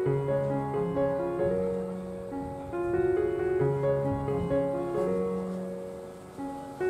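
Background music: a gentle piano melody with bass notes.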